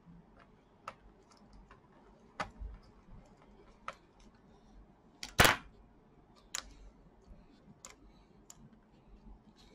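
Small screwdriver working a screw out of a laptop's plastic bottom case: sharp, separate clicks and ticks about a second apart, with one louder, longer clack about halfway through.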